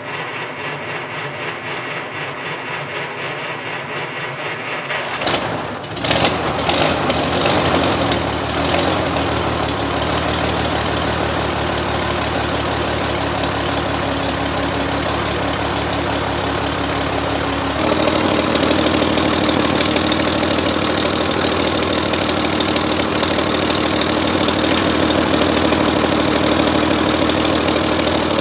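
1931 Chevrolet overhead-valve inline-six cranked on the starter with the choke on, catching after about five seconds and settling into a steady run. About two-thirds of the way in the engine note steps up and gets louder.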